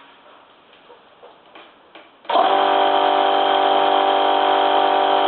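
Two-piston air compressor switched on about two seconds in, its motor and pump starting abruptly and then running steadily with a constant hum.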